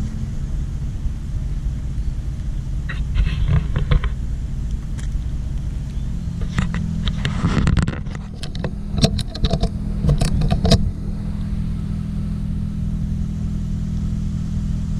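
A vehicle engine idling steadily. Two spells of rustling and light clicks come over it, one about three seconds in and a longer one midway, as a cat noses through dry leaves and fallen petals.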